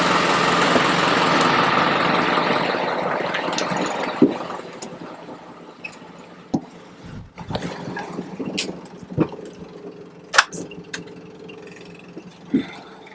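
Truck engine idling, with a loud rushing noise that fades away over the first four seconds, then a low steady hum broken by scattered knocks and clicks.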